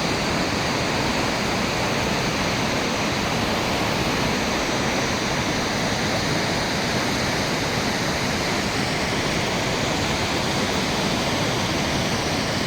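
Steady rush of a large waterfall: an even, unbroken noise with no change in level.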